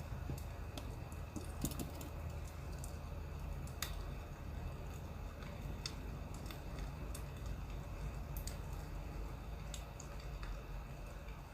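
Burning firewood crackling, with sharp pops at irregular intervals over a steady low rumble.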